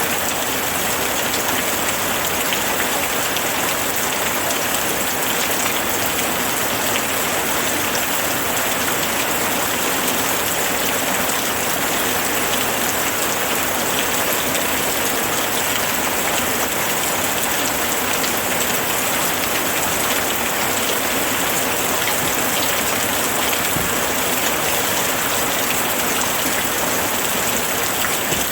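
Steady heavy rainfall, a dense even hiss of many drops pattering on a surface, unchanging throughout.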